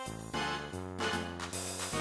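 Background music: a melody moving note by note, with no voice over it.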